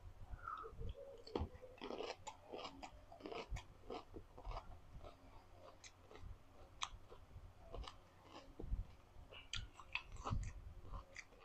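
Close-miked chewing of a lime wedge dipped in salt: irregular wet clicks and small crunches in the mouth.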